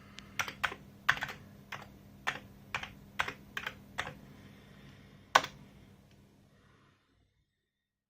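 Typing on an Amiga 1200's built-in keyboard while logging in to a BBS: about ten quick keystrokes, then a single louder key press about five seconds in, over a faint steady hum.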